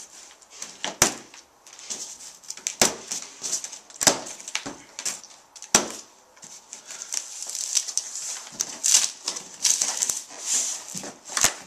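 Plastic packing straps around a cardboard box being cut one after another, each giving a sharp snap, four in the first six seconds. Then the loose straps are pulled away and the cardboard flaps are opened, with scraping and rustling of cardboard and plastic wrapping.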